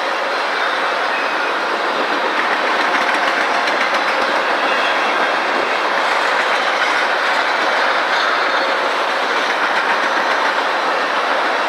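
Freight train of empty tank cars rolling past: a steady rumble of steel wheels on rail with light clicking from the wheels.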